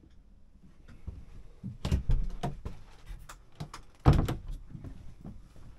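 Motorhome washroom door being handled: a few knocks and rattles about two seconds in, then a louder single knock with a short ring about four seconds in as the door shuts.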